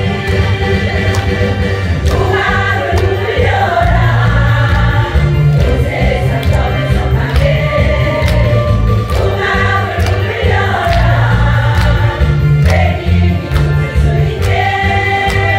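Women's choir singing a slow song in harmony, phrase after phrase.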